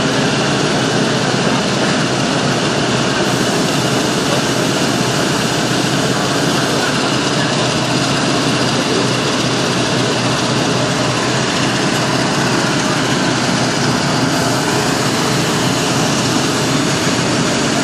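Fire truck's engine running steadily, with a constant loud, even hiss over it.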